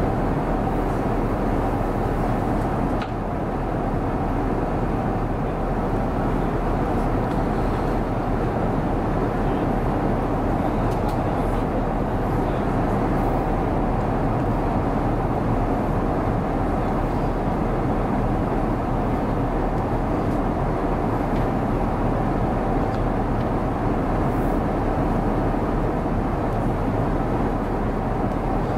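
Steady in-flight cabin noise of an Airbus A350-900 at cruise altitude: an unbroken rush of airflow and engine noise, with a brief small dip about three seconds in.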